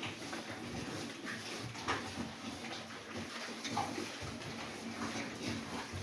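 Pigs in a pen making short calls, several of them a second or so apart, over a steady low background of the herd.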